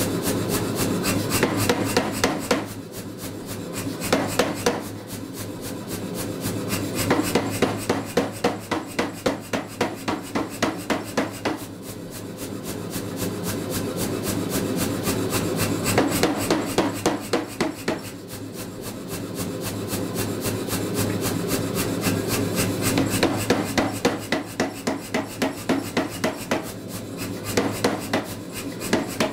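Say-Mak self-contained power hammer striking a handled punch set into a red-hot steel hammer head, punching the eye, in runs of rapid, evenly spaced blows with short pauses between them. The machine's motor hums steadily underneath.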